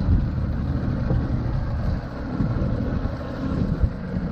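Wind buffeting the microphone on a boat, over a steady low rumble, with a couple of sharp knocks, the loudest near the end.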